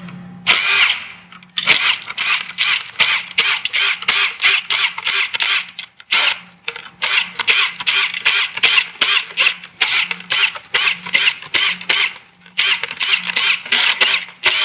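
Quarter-inch ratchet with an 8mm socket clicking rapidly as bus bar nuts are backed off one after another, in several runs broken by brief pauses.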